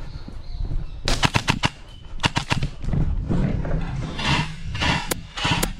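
Airsoft guns firing: a quick string of sharp shots about a second in, another short string just after two seconds, then a few single shots near the end.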